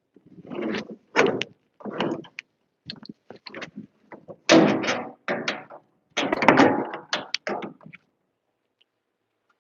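Irregular knocks, thuds and scraping handling noises from hands-on electrical installation work, loudest in two clusters in the middle, then stopping about two seconds before the end.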